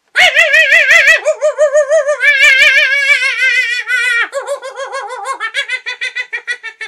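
A person's voice imitating chimpanzee screeching: loud, high, wavering calls, first in short pulses, then one long wobbling screech, breaking into a quick run of short hoots in the last couple of seconds.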